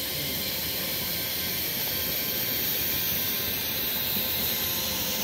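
Ridable live-steam miniature locomotive running past with a steady hiss of steam.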